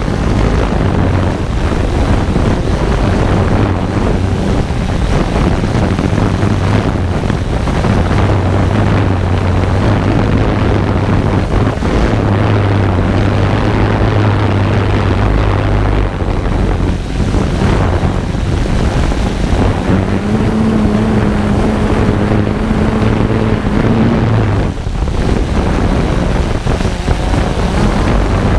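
Multirotor drone's motors and propellers whirring steadily, heard through its onboard camera microphone, with a low hum that shifts in pitch as the drone manoeuvres and wind rushing over the microphone.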